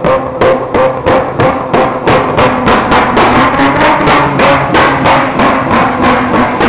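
Mazda MX-3 engine revved hard and stuttering in a rapid, regular pattern of cuts, about four a second and quickening, over a steady engine tone.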